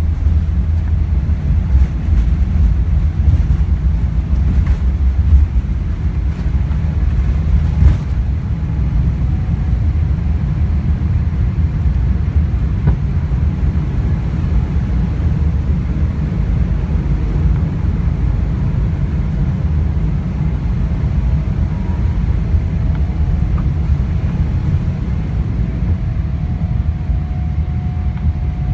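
Cabin sound of a Boeing 777-300ER's GE90 engines at takeoff thrust: a loud, steady low rumble with runway bumps and knocks that stop about eight seconds in as the jet lifts off. A faint steady whine comes in near the end.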